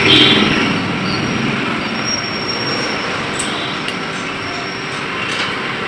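Steady background noise of traffic or machinery, with a brief metallic scrape at the start and a few faint clicks.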